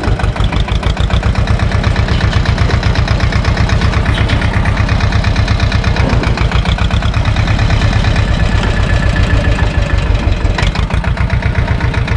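SAME tractor's diesel engine running with a steady, rapid exhaust beat as the tractor moves over river gravel.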